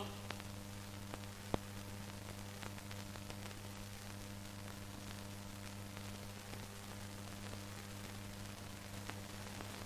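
Old film soundtrack noise with no music or speech: a steady hiss and low hum, dotted with faint clicks and crackles, one sharper click about a second and a half in.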